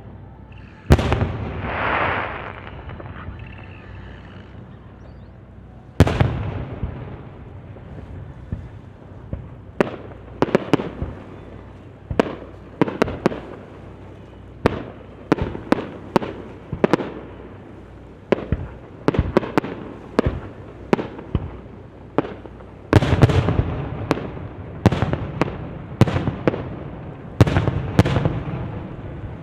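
Fireworks shells bursting overhead. A loud bang about a second in is followed by a crackling hiss, then another bang. After that comes a quickening run of booms, one or two a second, massing into heavier volleys near the end.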